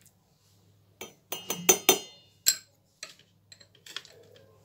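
Metal spoon clinking and scraping against a plastic bowl and a stainless steel blender jar as spice paste is knocked into the jar: a cluster of sharp clinks about a second in, then a few lighter taps.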